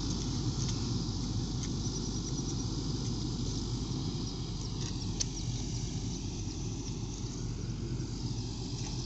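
Motor grader's diesel engine running steadily as it works the road bed, a low even hum without changes in pitch.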